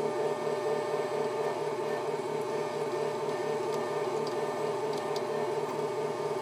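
Drill press running steadily, its twist bit boring through a leaf-spring steel knife blank, with a few faint high ticks.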